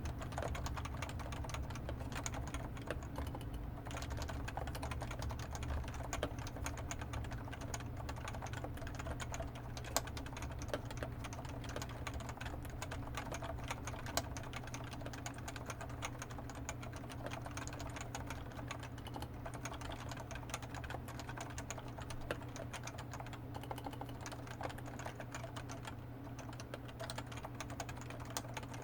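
Continuous fast typing on a Topre Realforce 87u tenkeyless keyboard with 45 g electrostatic capacitive switches, PBT keycaps and factory sliders, stabilizers lubed with Krytox 205: a dense, even stream of soft key strokes.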